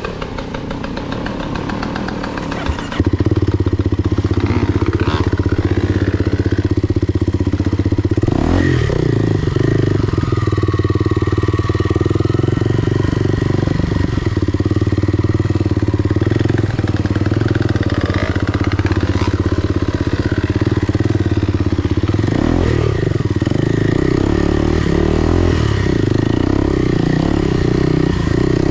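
Enduro motorcycle engine running steadily, getting much louder about three seconds in and holding there.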